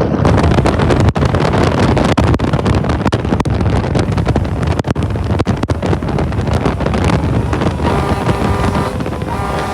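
Fire department tower ladder truck responding: loud vehicle noise with heavy wind buffeting on the microphone. Near the end come two steady air-horn blasts.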